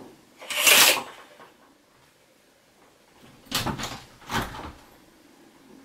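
Curtains drawn open along their rail: a swish about half a second in, then two shorter swishes about three and a half and four and a half seconds in.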